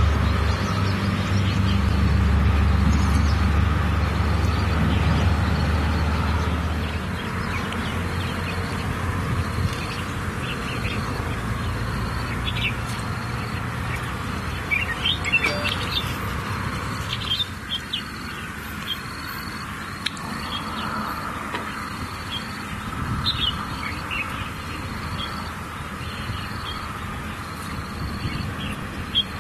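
Outdoor birds chirping, with quick chirps clustered about halfway through and a short high note repeating about every second and a half. A low rumble sits under the first seven seconds, then fades.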